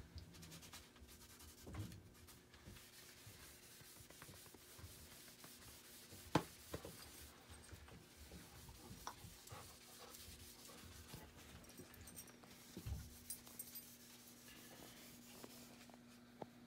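Faint rubbing of gloved hands and a rag working wood stain into an oak walking stick, with scattered small clicks as the stick is handled. There is a sharp tap about six seconds in and a dull thump near thirteen seconds.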